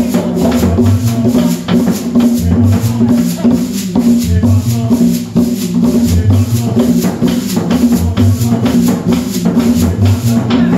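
Small band playing an upbeat Afro-Colombian cumbia-style tune: a metal shaker keeps a fast, even rhythm over a pulsing bass line and hand percussion. The music breaks off at the very end.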